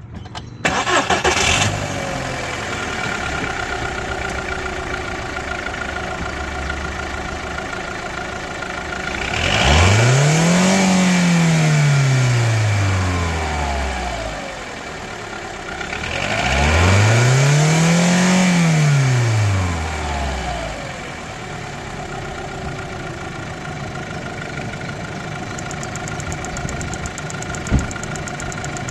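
A VW Golf IV's 1.4-litre four-cylinder petrol engine starts and settles into idle. It is then revved twice, each time rising in pitch and falling back over about four seconds, and returns to idle. A single short click comes near the end.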